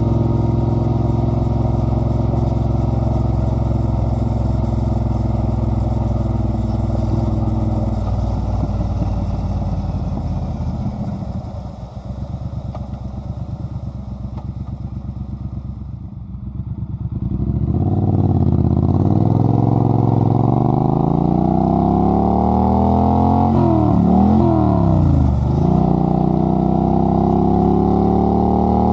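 2017 Triumph Bonneville Bobber's 1200 cc parallel twin through a British Customs straight-pipe exhaust, heard from the rider's seat on the move. It runs at steady revs, then the throttle closes and the exhaust drops to a low burble for several seconds. A little past halfway it accelerates with rising pitch, with two quick dips for gear changes, and is still pulling near the end.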